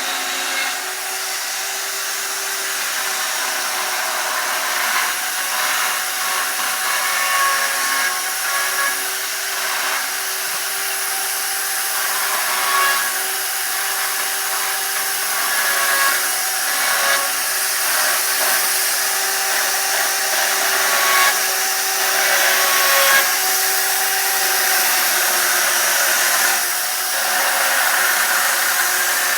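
Chainsaw running continuously as it carves into wood, its pitch holding steady with small swells in loudness as the load changes.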